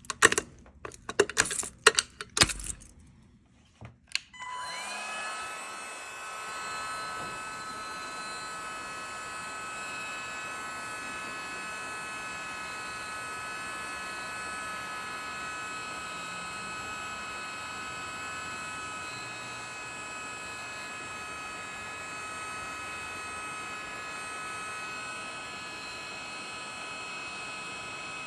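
A few clicks and rattles. Then, about four seconds in, a fire alarm signal comes on and sounds steadily and unbroken, a ringing made of several fixed pitches, as the building's general alarm is triggered during testing.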